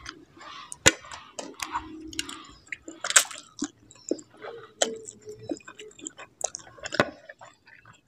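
Close-miked eating of a mouthful of spicy instant noodles: slurping the strands in and chewing, with many short wet mouth clicks and a few sharper louder smacks about one, three and seven seconds in.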